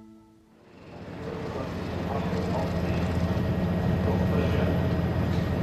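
A steady low vehicle rumble, typical of circuit sound at a motor race, fades in after a moment of near silence and levels off about two seconds in.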